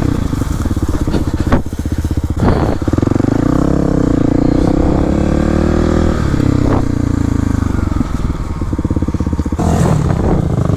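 Kawasaki KLX300 dirt bike's single-cylinder four-stroke engine running under way on a muddy trail, its revs rising and falling with the throttle. A few sharp knocks about a second and a half and two and a half seconds in.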